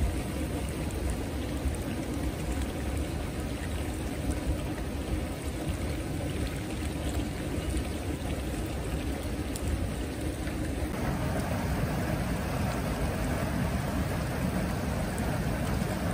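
Steady rush of running water at a hot-spring pool, with a deep rumble underneath; about eleven seconds in the rush turns brighter and a little louder.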